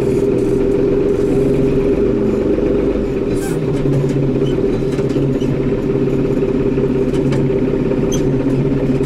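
Tractor engine running steadily, heard from inside the cab, its pitch rising slightly about three and a half seconds in.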